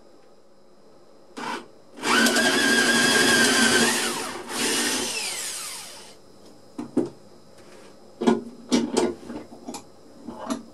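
Cordless drill boring into a small wooden block: a brief trigger blip, then about two seconds of steady whirring, then a shorter run that winds down in pitch as the motor spins down. Several knocks and clicks of wood and the bench vise follow.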